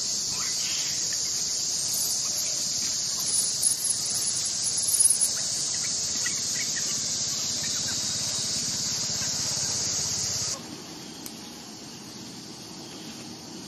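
Steady high-pitched drone of an insect chorus, with a few short squeals about four to five seconds in. The insect drone cuts off abruptly about ten and a half seconds in, leaving a quieter background.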